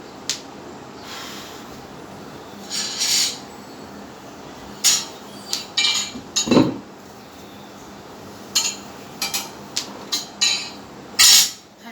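Knee joint cracking and popping as it moves: an irregular series of sharp clicks and short crackles, which the uploader puts down to arthritis.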